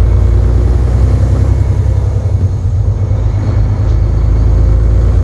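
Semi truck on the move, heard from inside the cab: a steady, loud low rumble of engine and road noise.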